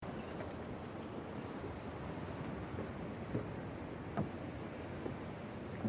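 Beach ambience: steady surf from breaking waves, with insects chirping in a fast, even, high pulsing from about a second and a half in. A few short soft thumps, the strongest about four seconds in.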